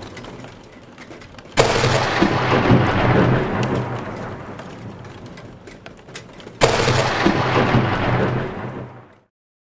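Thunder: two sudden claps, about a second and a half in and again near seven seconds. Each is followed by a long rumble that slowly dies away, and the sound fades out just before the end.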